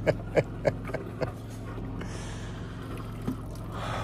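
Steady low hum of a yacht's onboard generator running, with a quick run of short sharp sounds in the first second or so and another single one near the end.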